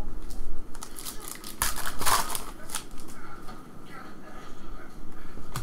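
Foil trading-card pack wrapper crinkling and tearing as it is opened, strongest about two seconds in, with the cards inside slid and shuffled against each other in the hands.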